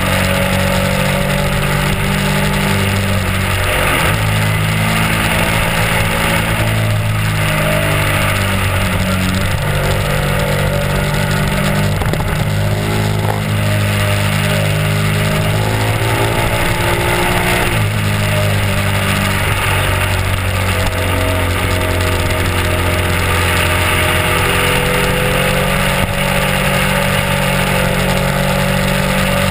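Honda RC51's 90-degree V-twin engine pulling at road speed, its pitch stepping up and down a few times with the throttle. A steady rush of wind and road noise runs under it.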